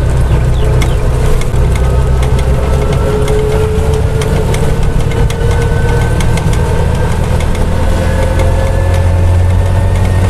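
A TVS King three-wheeler's engine pulls under load as it accelerates in gear. Its pitch climbs steadily over several seconds until it sounds strained, the cue that it is time to shift up. The cab makes many small clicks and rattles throughout.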